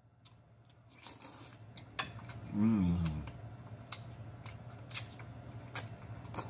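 Close-up eating sounds: a man slurping and chewing a mouthful of spicy instant ramen noodles, with wet mouth smacks and clicks. A short hummed "mmm" of enjoyment comes about two and a half seconds in.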